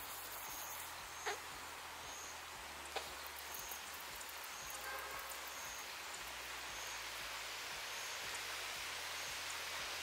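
Open-air ambience: a steady hiss with a faint high chirp repeating roughly once a second, and two soft clicks, one a little over a second in and one about three seconds in.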